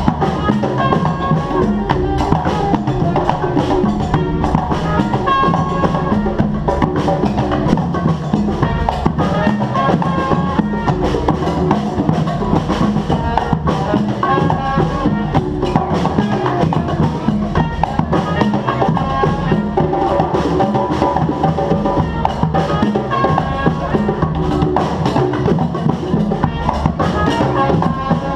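Live band music: drums and percussion keep up a steady, busy beat under pitched instruments.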